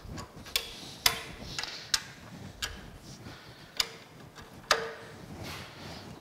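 Ratchet wrench clicking on a steel nut inside a cast-iron stoker engine crankcase: about seven sharp, irregularly spaced clicks, some with a short metallic ring, as the nut is worked loose.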